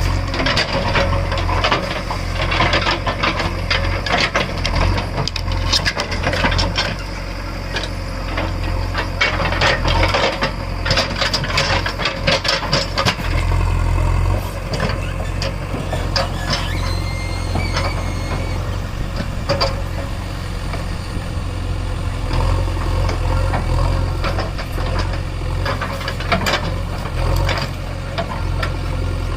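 JCB 3DX backhoe loader's diesel engine running steadily under a steady low hum, with frequent rattling, knocking and scraping from the machine at work, thickest in the first half and picking up again near the end.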